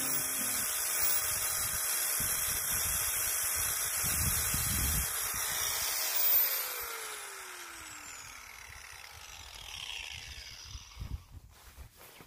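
DeWalt angle grinder grinding out fiberglass at a sailboat's bow, a steady hissing whine. About six seconds in it is switched off and its whine falls in pitch as the disc spins down.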